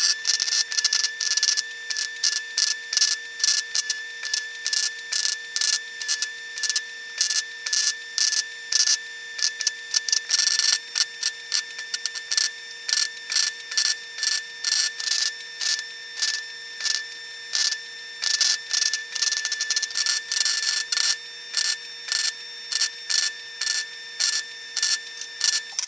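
MIG welder (Longevity MigWeld 140 with 0.030" wire and C25 gas) running a long bead on a mild-steel DOM roll cage tube: an unbroken sizzling crackle that surges and dips unevenly, with a steady high whine underneath that stops near the end.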